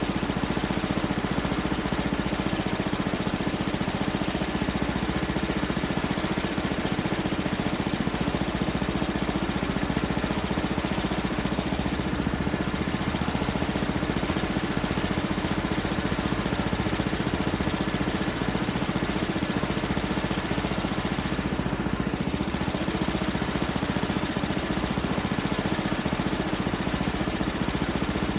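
Engine idling steadily, an even drone with no change in speed.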